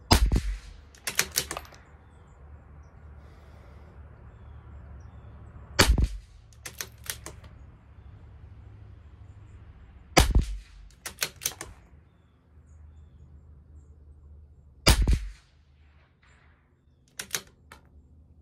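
Four shots from a CZ 457 LRP bolt-action .22 LR rifle firing Geco ammunition, about four to five seconds apart. Each shot is followed about a second later by a quick run of clicks as the bolt is worked.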